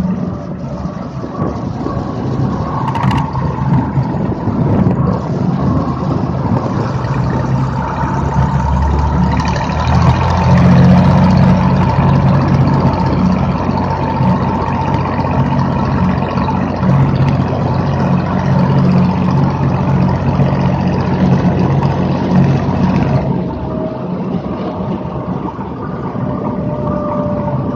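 Light single-engine plane's piston engine and propeller running while the plane rolls on the runway, heard from a wing-mounted camera. About ten seconds in the engine power rises and the sound grows louder, then it drops back to a lower setting near the end.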